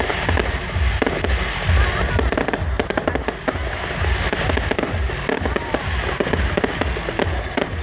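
Loud, dense street-carnival noise: crackling pops like fireworks or firecrackers, over music with a heavy bass beat that kicks in at the start, and voices.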